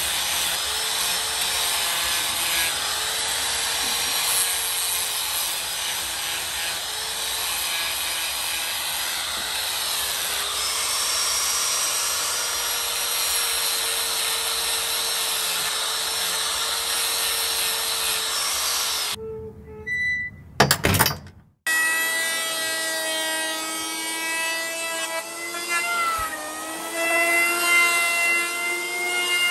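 Angle grinder running steadily and grinding metal on an electric hand planer, throwing sparks. After a brief gap and a short loud clatter about twenty seconds in, the electric hand planer runs with a whining motor and shaves a hardwood board, its pitch dipping for a moment under the load of the cut.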